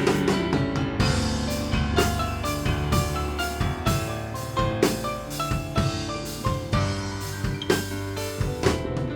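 Live worship band playing an instrumental passage between sung verses: a drum kit keeps a steady beat under held chords and a stepping melody line.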